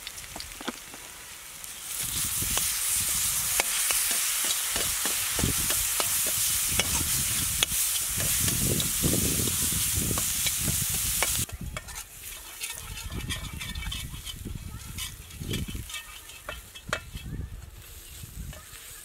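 Onions and spices sizzling in hot oil in an iron kadai while ginger-garlic paste is stirred in, the metal spatula scraping and clicking against the pan. The sizzle gets louder about two seconds in and drops off suddenly about halfway through, leaving quieter scraping.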